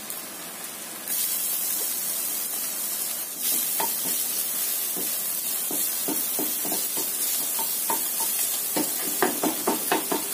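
Chopped garlic frying in hot oil alongside scrambled egg in a non-stick pan, a steady sizzle that gets louder about a second in and again a couple of seconds later. A wooden spatula scrapes and taps the pan as it stirs, the strokes coming quicker near the end.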